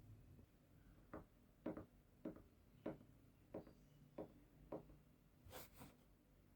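A series of about seven soft knocks at an even pace, roughly two a second, followed near the end by two sharper clicks.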